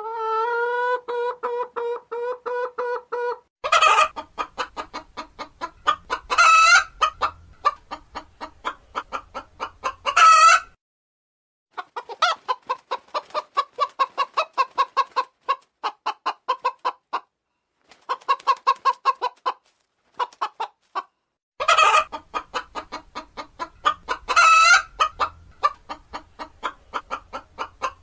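Domestic hen cackling: long runs of rapid clucks, punctuated about five times by a loud, drawn-out squawk.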